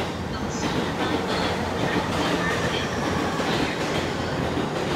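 E217-series electric commuter train running into a station platform, its wheels clattering over rail joints.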